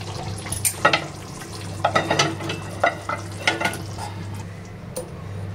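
Half-cooked chicken pieces scraped from a pan into simmering tomato gravy in a steel kadai, with repeated clinks and scrapes of the spoon against the pans over a light sizzle.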